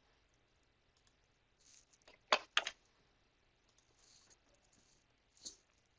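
Sharp clicks of a computer mouse at the desk: a quick cluster of three a little past two seconds in, and one more near the end.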